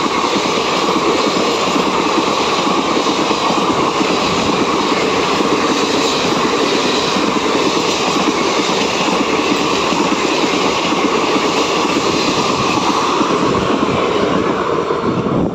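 Passenger coaches of the Pinakini Superfast Express running past at speed, a steady loud rush of steel wheels on the rails.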